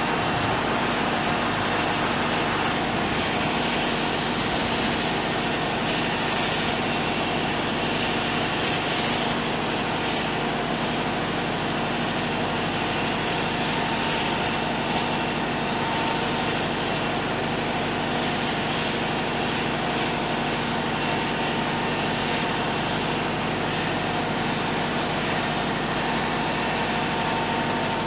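A heavy machine's engine running at a steady speed, constant in level, with a broad noisy wash over it.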